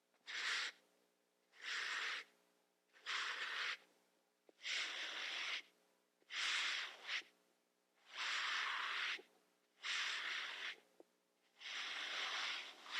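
Soft breathy swishes in a slow, even rhythm, about seven of them roughly one every second and a half to two seconds, each lasting half a second to a second, over a faint steady hum.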